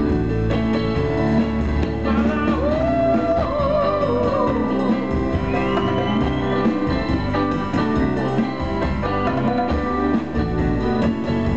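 Live band music with an electric guitar playing lead, bending and shaking notes over the band, with a rising bend about six seconds in.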